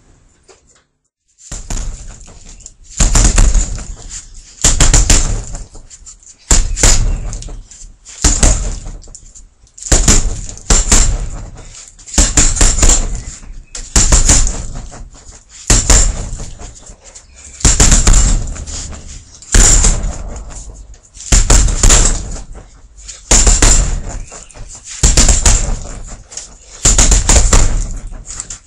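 Heavy punching bag being hit with fast combinations: a quick flurry of several thudding blows about every two seconds.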